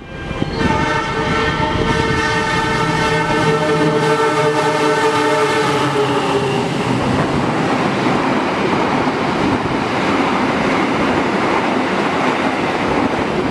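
Passenger train sounding one long horn blast of about six seconds as it runs along the station platform, then the steady noise of its carriages rolling past.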